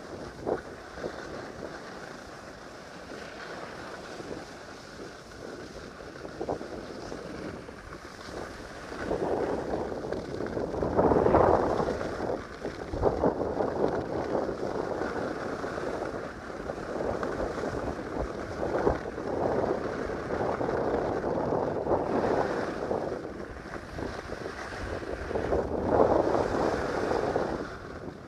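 Wind buffeting a phone's microphone while skiing downhill, mixed with the hiss of skis sliding on packed snow. The rushing noise swells louder about ten seconds in and again near the end.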